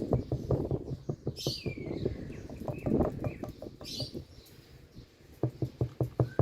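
Indian ringneck parrot making quick water-drop-like plinks, about five a second, pausing briefly past the middle, with a short falling whistled call about a second and a half in and another near four seconds in.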